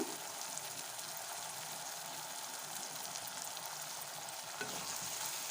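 Chopped onion, capsicum, garlic and ginger sizzling in hot oil in a pan, with the sauces just added: a steady, even hiss.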